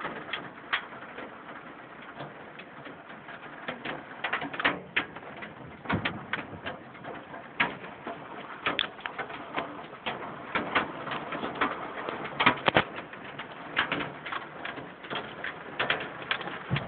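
Hailstones and rain pelting down in a storm: a steady hiss with a dense, irregular run of sharp ticks and knocks as the hail strikes, loudest about three-quarters of the way through.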